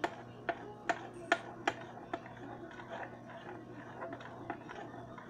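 Spoon clinking against a bowl while runny slime is stirred: a run of sharp taps about two a second, giving way to softer clicks after about two seconds.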